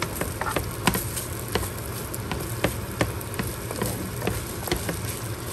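Fried rice sizzling in a hot pan while it is stirred, a steady hiss broken by irregular light clicks and scrapes of the utensil against the pan.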